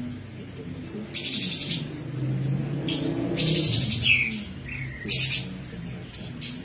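Kapas tembak, a caged songbird, singing in loud bursts of fast, high trills, three main phrases with a short falling note after the middle one. A steady low hum runs underneath.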